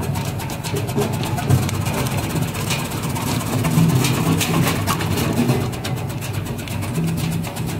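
Stainless steel vegetable slicing machine's motor humming steadily, with a rapid, uneven run of clicks as its blade cuts sweet potatoes into round slices.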